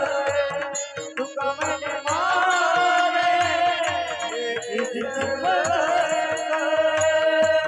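A woman singing a Marathi devotional abhang in long, ornamented held notes, over steady drum beats and the clicks of small hand cymbals.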